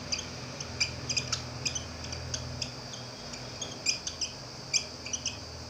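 Dry-erase marker squeaking and scratching on a whiteboard as a line of handwriting goes down: many short, high strokes in an irregular run, over a steady low hum.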